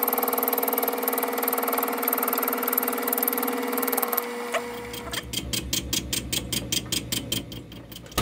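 Atlas 618 lathe running with a steady hum as its four-jaw chuck turns a brass blank during a facing cut. About four seconds in, the motor is switched off and the spindle coasts down, giving a rhythmic beat that slows and fades.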